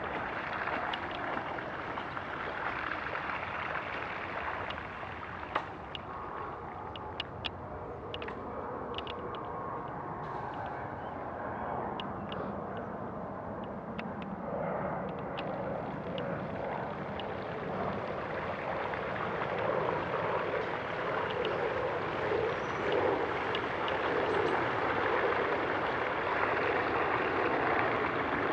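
Continuous swishing and gurgling of floodwater as something moves through it, with a scatter of small clicks several seconds in and growing louder in the second half.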